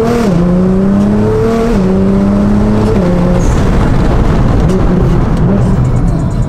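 Tuned Nissan GT-R R35's twin-turbo V6 with an HKS exhaust accelerating hard through the gears: the note climbs and drops sharply at quick upshifts, right at the start, just before two seconds in and at about three seconds. After that the pitch holds steady under a rougher rumble with road noise.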